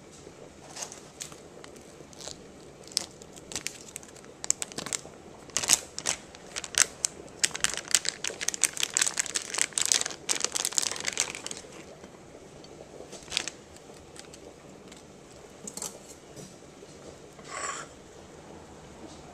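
Plastic package of imitation crab sticks being opened and handled: crinkling and crackling plastic, densest in the middle and thinning to a few scattered crackles.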